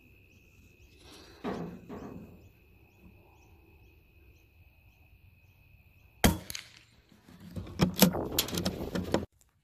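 A single shot from a CZ452 bolt-action .22 LR rifle firing a Winchester subsonic round: one short, sharp crack about six seconds in. About a second later comes a cluster of clicks and rattles as the rifle is handled and moved. Softer knocks of handling come earlier.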